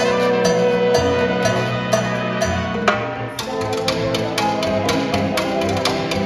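Small Latin jazz band with congas, timbales, upright bass, guitar and piano playing a slow Latin ballad, with regular sharp percussion strokes that come faster a little past halfway.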